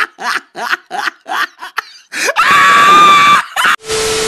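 Edited-in comedy sound effects: a quick run of short staccato laughs, about four a second, then one held high scream about two seconds in. Near the end comes a burst of TV static hiss with a steady beep tone.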